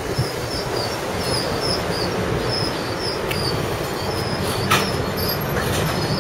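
PCC streetcar rolling past close by, its steel wheels rumbling on the rails, with one sharp click about three-quarters of the way through. Short high chirps repeat over the rumble.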